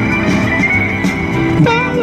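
A recorded song playing, led by guitar over a full band, with a held, wavering sung note coming in near the end.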